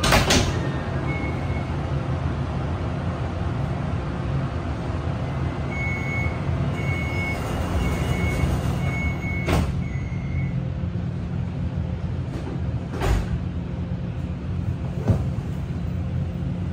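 Kaohsiung MRT train standing in the station with a steady low hum from its equipment. A row of about five short high door-closing warning beeps sounds, and the sliding doors shut with a knock near the middle. A couple more knocks follow later.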